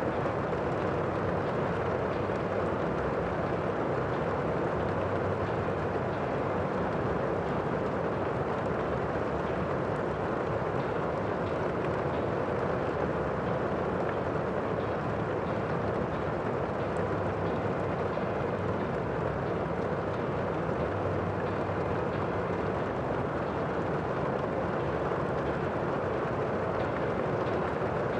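Steady, unbroken rushing noise with no distinct events, fullest in the low-to-middle range.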